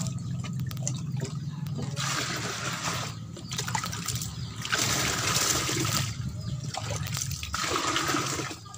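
Water poured from a plastic hand scoop into a large plastic tub, three splashing pours of about a second each, roughly three seconds apart, as the tub is filled scoop by scoop.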